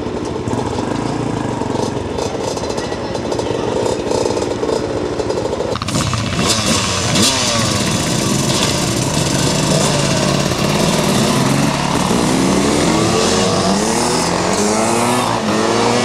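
A crowd of enduro dirt bike engines idling together, then several bikes revving and pulling away one after another, their pitches rising and falling over each other from about six seconds in.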